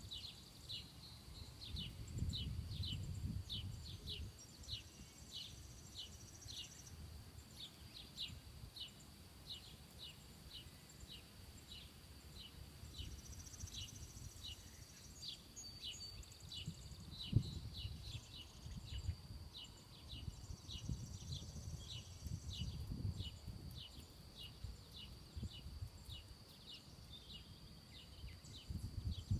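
Insects calling in a rural summer field: a steady high drone with a regular short chirp about twice a second. Underneath runs an irregular low rumble.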